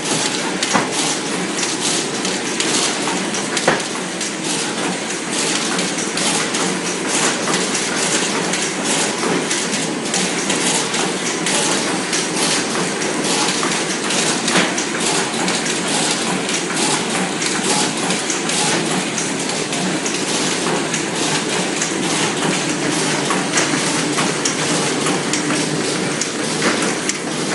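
Automatic cartoning machine running, feeding blister packs and folded leaflets into cartons: a steady, dense mechanical clatter of many rapid clicks, with one sharper click about four seconds in.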